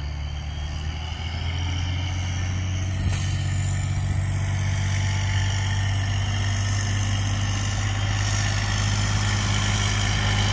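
Delivery truck's engine running steadily, growing gradually louder.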